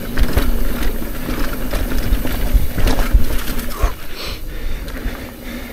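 Trek Rail electric mountain bike riding down a dirt trail: wind rushing over the camera microphone and the tyres rumbling, with knocks and rattles from the bike over bumps and a faint steady hum.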